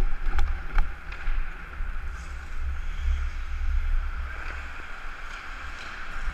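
Wind buffeting the microphone of a helmet-mounted action camera as the wearer skates, over the hiss of ice skate blades scraping the ice. A few sharp clicks sound in the first second, typical of hockey sticks or a puck.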